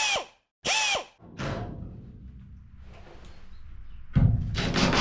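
Cordless DeWalt drill driver running screws into plywood strips: two short trigger bursts in the first second, the motor's pitch rising and falling with each. A louder run starts about four seconds in.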